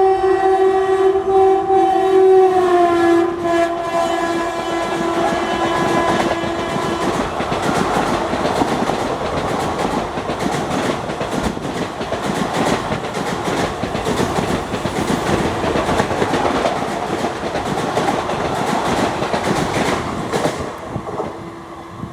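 WAP-4 electric locomotive's two-tone horn blaring continuously, its pitch dropping about two and a half seconds in as the locomotive passes, then stopping about seven seconds in. The express coaches then rush past at speed, wheels clattering over the rail joints, fading near the end.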